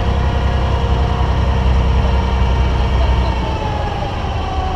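Inboard diesel engine of a wooden abra water taxi running with a heavy, steady low rumble as the boat pulls away from the jetty. About three and a half seconds in, the rumble eases and its pitch drops a little.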